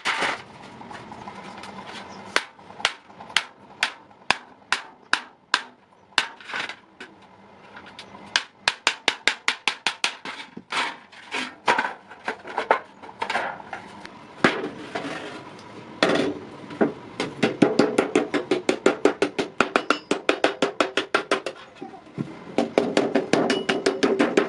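Hammer blows on iron at an anvil: single spaced strikes at first, then quicker runs of blows, and a fast, even series of ringing strikes over the last several seconds.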